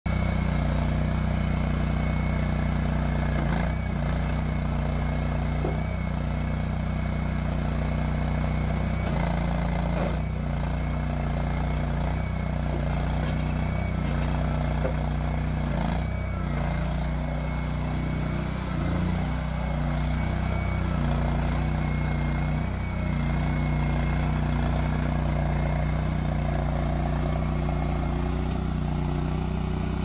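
Honda GX690 22 hp gas V-twin engine of a STAG TL322 mini tracked loader running steadily under the operator's control, its note sagging briefly a few times as the machine is loaded. A thin high whine sits above the engine throughout, with a few light clanks.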